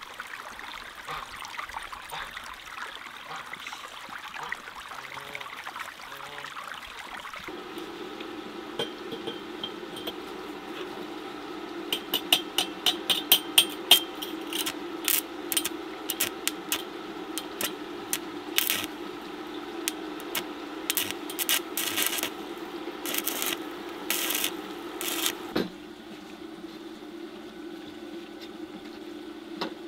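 Arc welding a steel frame with a small inverter stick welder: a steady hum sets in after several seconds, then many short crackling bursts of the arc, sharpest about twelve to fourteen seconds in, stopping a few seconds before the end.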